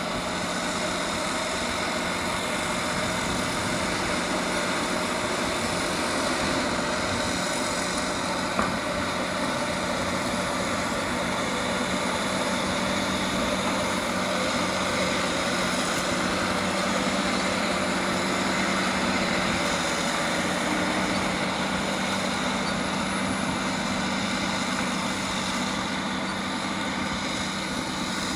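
Caterpillar D6R bulldozer's diesel engine running steadily at work, with a constant low hum. A single sharp knock about eight and a half seconds in.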